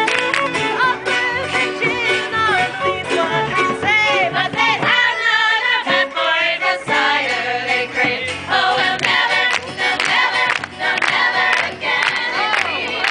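A tavern song: voices singing together over string-instrument accompaniment.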